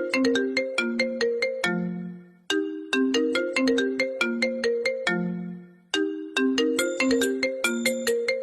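Phone ringtone playing a looping melody of short struck, chime-like notes. The phrase repeats about every three and a half seconds, each time ending on a longer low note.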